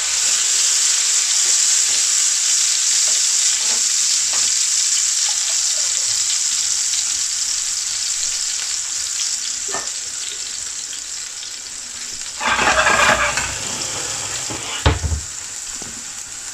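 Chopped garlic sizzling in hot oil and butter ghee in an aluminium frying pan: a steady high hiss that slowly fades. About three-quarters through there is a brief louder burst of noise, followed by a single sharp knock.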